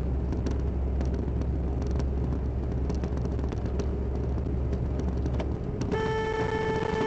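Steady road and engine rumble heard from inside a moving car, with scattered light ticks. About six seconds in, a car horn starts and is held as one steady blast.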